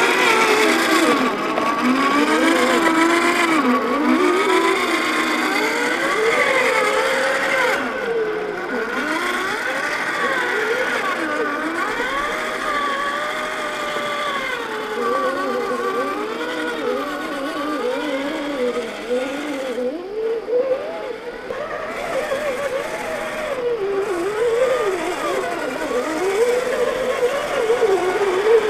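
1/10-scale RC crawler trucks' electric motors and gearboxes whining as they crawl over rock, the pitch rising and falling continuously with the throttle.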